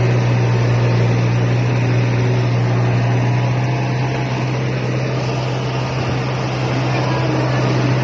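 Rice harvester engine running steadily under load, a constant low hum over a dense mechanical rush, heard from aboard the machine.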